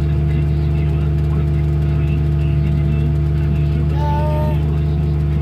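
Tractor engine running steadily with a deep, even hum, heard from inside the cab. A brief higher tone sounds about four seconds in.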